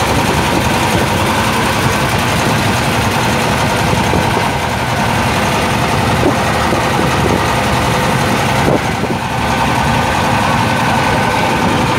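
Motor fishing boat's engine running steadily.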